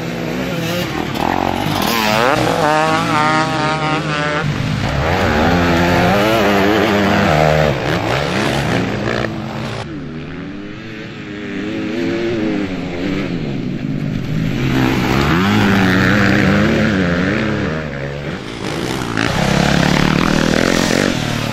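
Motocross motorcycles racing past, engines revving up and dropping back in repeated rising and falling sweeps, in waves as the bikes come by.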